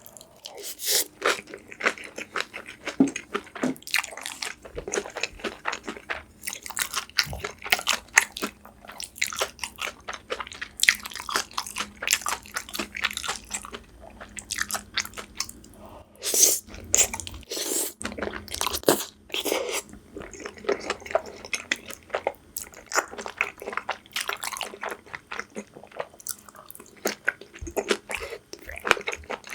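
Close-miked mukbang eating: repeated crunchy bites and wet chewing at an irregular pace, with brief louder bites now and then.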